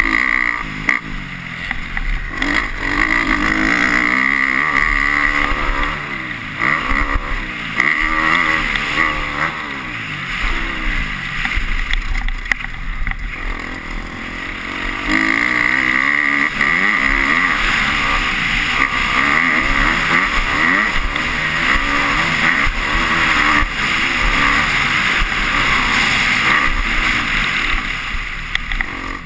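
250-class motocross bike engine, heard from on the bike during a race, revving up and down again and again as the rider shifts and gets on and off the throttle, easing off at times through the corners.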